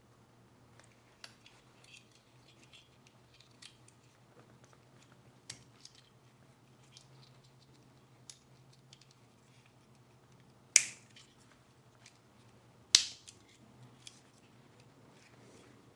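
Small plastic clicks and ticks of 9-volt batteries and their snap connectors being handled, with two sharp snaps about two seconds apart in the second half.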